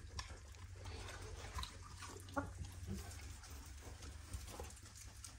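Faint snuffling and rustling of straw bedding as a Rottweiler noses about in it, heard as scattered soft ticks and scuffs.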